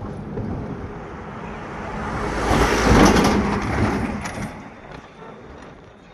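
A road vehicle passing by: its noise swells to a peak about three seconds in, then fades away.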